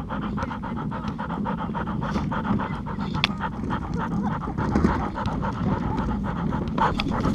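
Dog panting quickly and evenly, close to a collar-mounted camera's microphone.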